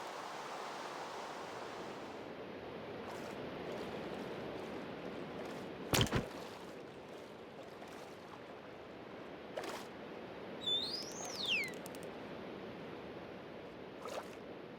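Steady hiss of falling rain. A single sharp knock comes about six seconds in, and near the middle a short whistled call rises and then falls.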